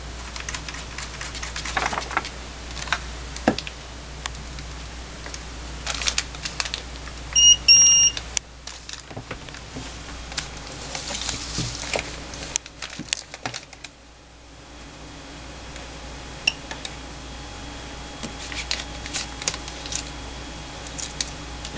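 Two short electronic beeps close together about seven seconds in, the loudest sound, from the handheld WED-3100 veterinary ultrasound scanner as it is switched on, amid clicks and rustling as the scanner, the probe cable and its plastic wrapping are handled.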